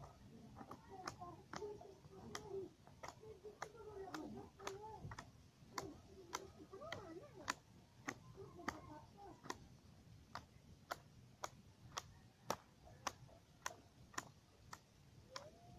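Faint, steady ticking at about two ticks a second, with faint wavering pitched sounds in the background during the first ten seconds.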